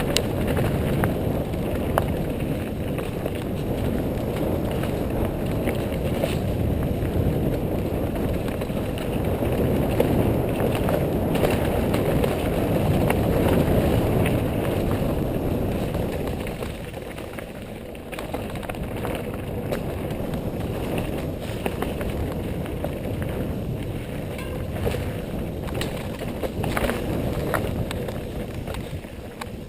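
Wind rushing over the microphone and mountain bike tyres rolling over dirt trail on a fast downhill descent, with scattered clicks and rattles from the bike. It eases off briefly a little past halfway.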